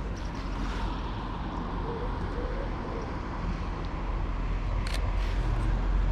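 Steady low outdoor rumble with no clear single source, and a couple of brief sharp clicks about five seconds in.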